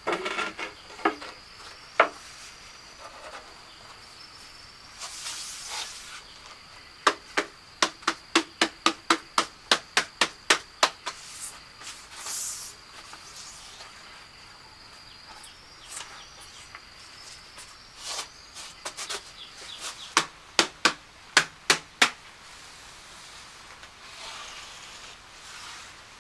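Runs of sharp taps, about three a second, from hand-tool work, over a steady high-pitched insect drone.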